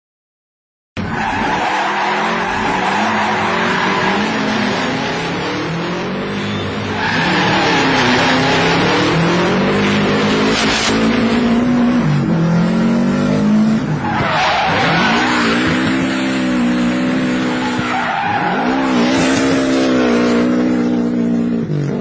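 A car drifting: the engine revs up and down repeatedly while the tyres squeal and screech. It starts after about a second of silence, and the engine pitch drops and climbs again a couple of times near the middle and towards the end.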